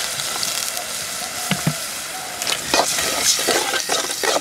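Water poured from a jug into a hot pot of frying spice paste, which hisses. From about two and a half seconds in, a metal spatula scrapes and stirs repeatedly against the aluminium pot.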